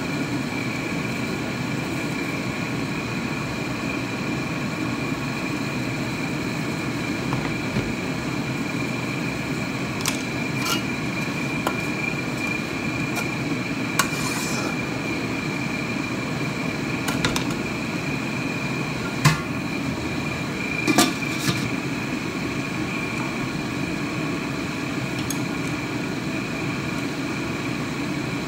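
Metal spatula knocking and scraping in a wok, a scatter of short sharp clinks, the loudest a little past the middle, over a steady background hum with a faint high whine.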